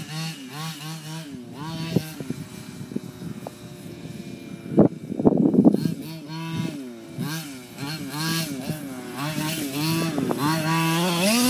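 Losi 5ive T 1/5-scale RC truck's 23cc two-stroke petrol engine revving up and down as the truck is driven, its pitch rising and falling with the throttle again and again. About five seconds in there is a louder, noisy stretch.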